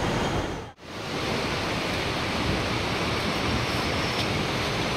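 Steady rushing noise of a fast mountain river, with a brief dropout about a second in.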